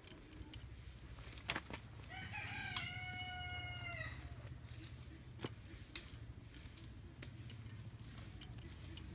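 A rooster crows once, about two seconds in. The call lasts about two seconds, rising at the start and then held steady. A faint low hum and a few soft clicks run underneath.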